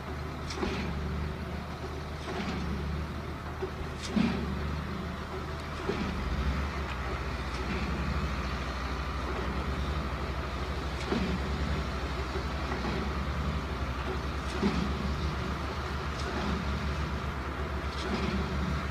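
XCMG GR215 motor grader's diesel engine running steadily while its blade pushes loose stone. Now and then a rock knocks or scrapes.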